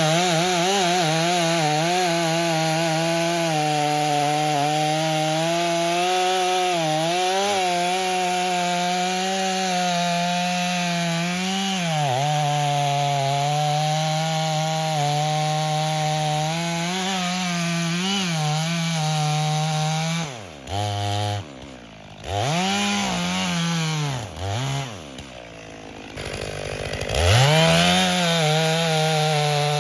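Stihl MS 500i two-stroke, fuel-injected chainsaw cutting through wood at full throttle, its pitch wavering as it bogs and recovers in the cut. About two-thirds of the way through it drops off and its speed swings up and down for several seconds, then it goes back to full speed near the end.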